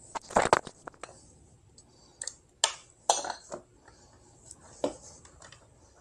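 Irregular metallic clinks and light knocks of small metal parts and hands working at an electric scooter's rear wheel hub.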